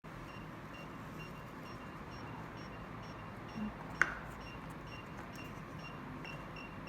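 Small electronic alarm buzzer beeping: short, faint, high beeps about three times a second over a steady hiss, with one sharp click about four seconds in.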